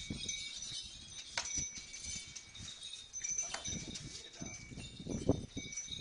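Bull's hooves knocking on brick paving as it is led along at a walk, irregular steps, with a high light ringing over them.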